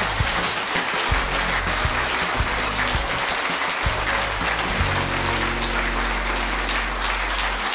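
Studio audience applauding, with music playing underneath.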